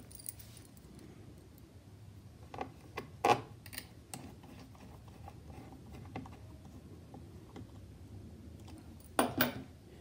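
Scattered light clicks and taps of a small screwdriver, a screw and fingers on a laptop's plastic bottom case during reassembly, the loudest click a little over three seconds in and a short cluster near the end.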